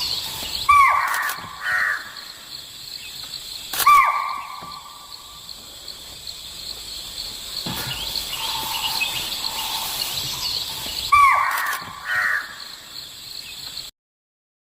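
Deer calling: short, falling, pitched calls in three bouts, the first and last as pairs. A steady insect buzz runs beneath, and the recording cuts off suddenly near the end.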